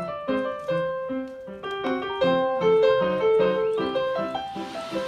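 Background music: a piano playing a light melody of separate notes, about three to four a second.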